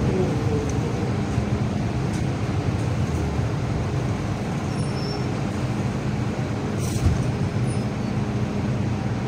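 Interior sound of an MTR M-train electric multiple unit running in a tunnel: a steady rumble of wheels and running gear with a faint motor whine, as the train brakes toward a station stop.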